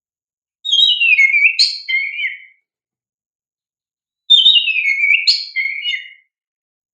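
Oriental magpie-robin (kacer) singing two loud whistled song phrases of about two seconds each, the second starting about four seconds in. Each opens with a note sliding down from high to lower pitch, then runs into quick varied notes.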